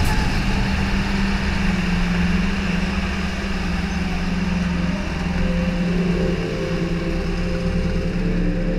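Go-kart engine running at a steady, low speed, a constant hum with no revving up or down.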